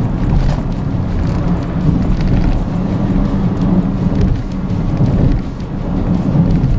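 Loud, steady rumble of tyre and wind noise inside a small hatchback's cabin at highway speed, around 100–120 km/h on a rough road.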